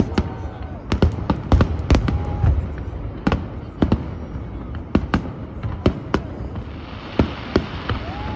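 Fireworks display: aerial shells bursting in a quick, irregular run of sharp bangs, about two a second, with a hissing crackle near the end.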